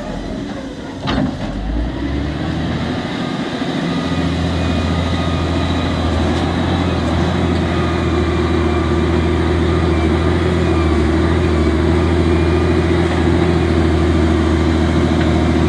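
A large engine runs steadily, its hum building over the first few seconds and then holding even. A single sharp click comes about a second in.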